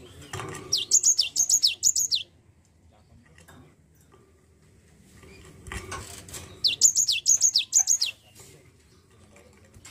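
Cinereous tit (gelatik batu) singing: two bursts of rapid, sharp whistled notes, each note sliding down in pitch, about six or seven notes a burst, about a second in and again about six and a half seconds in. Soft rustling from the bird moving in its cage comes just before each burst.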